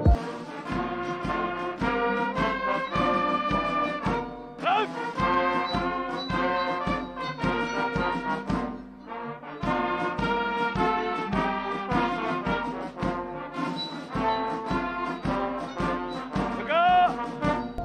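Ceremonial brass band playing a march, with short brass notes on a quick, even beat.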